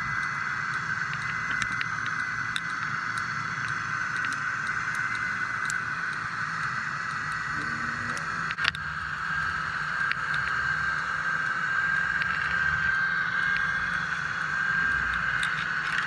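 A fishing boat's engine heard underwater through a submerged camera: a steady low hum with a constant high whine, and scattered sharp clicks and crackles, one louder click about eight and a half seconds in.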